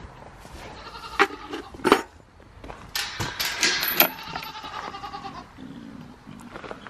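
Goats bleating, including a long wavering bleat from about three seconds in, with a few sharp clanks in between.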